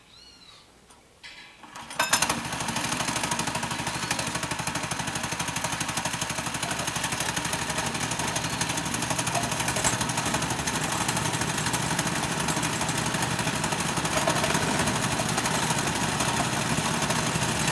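A go-kart engine starts abruptly about two seconds in, then keeps running steadily with a fast, rough, even pulse.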